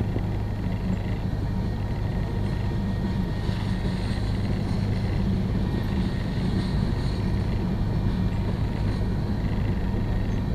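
Union Pacific mixed freight train cars (covered hoppers, a tank car, a boxcar) rolling past at cruising speed: a steady rumble of wheels on rail, heard from inside a car through its back window.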